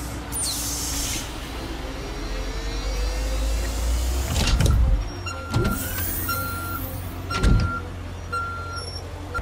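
Sound effects of a wheeled hydraulic excavator: a low engine rumble, a hiss near the start and a slowly rising hydraulic whine as its stabilizer legs lift. Three heavy clunks follow, then a warning beep repeating about once a second.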